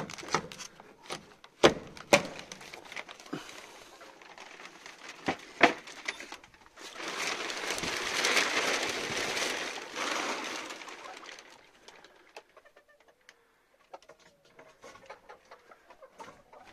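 Plastic sheeting lining a chicken coop crinkling and rustling for about four seconds in the middle, after a run of scattered clicks and knocks. Chickens make soft sounds near the end.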